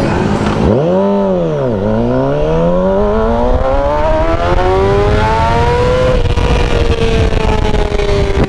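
Motorcycle engine revs up and drops back about a second in, then accelerates hard with its pitch climbing steadily for about four seconds before easing off and slowly falling. Wind rushes underneath.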